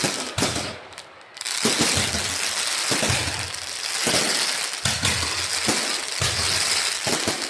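Fireworks going off in a dense, continuous crackle of rapid bangs, with a brief lull about a second in.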